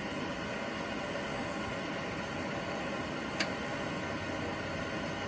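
Propex propane air heater running its purge cycle with a steady blowing noise, and about three and a half seconds in one sharp little click: the heater's ignition firing.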